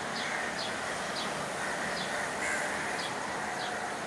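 Crows cawing now and then, with a steady run of short high chirps, about two a second, over an even background noise.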